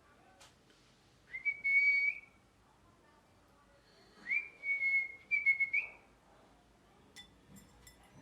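Pet ringneck parrot giving two high whistled calls, each a steady whistle ending in a short upward flick; the second, a couple of seconds after the first, is longer and broken into several parts. A few faint clicks near the end.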